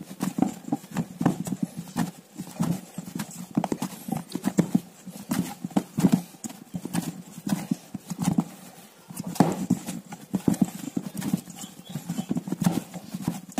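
Bread dough of wholewheat flour and oats being kneaded by hand in a metal bowl: a quick, irregular run of soft thuds and knocks as hand and sticky dough press and slap against the bowl.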